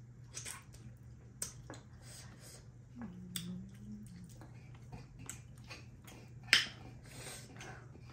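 Close-up mouth noises of people eating with their hands: scattered wet lip smacks, chewing and finger-sucking clicks, with one loud smack about six and a half seconds in. A short low hum is heard around three seconds in.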